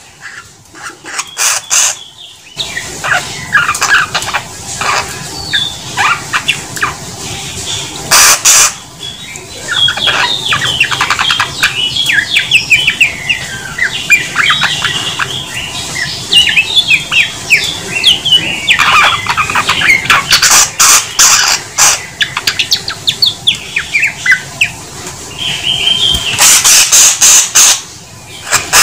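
A Samyong (Mongolian lark) in full song: a long, varied stream of quick chirps, trills and whistled glides, broken a few times by loud harsh rasping notes.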